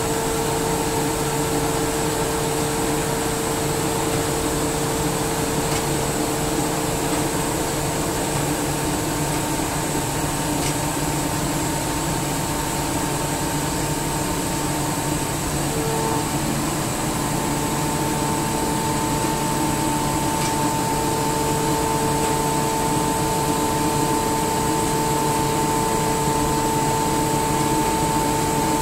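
SCR Comp SCR50M rotary screw air compressor running steadily: a constant mechanical hum and hiss with a few steady whining tones over it.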